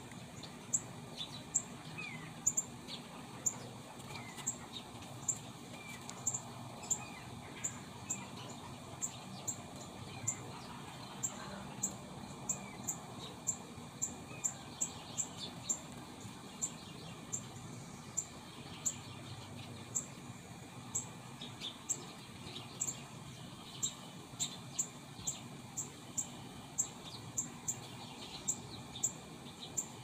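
Birds calling at sunrise: a sharp, high chip note repeated about one to two times a second, with softer whistled calls behind it.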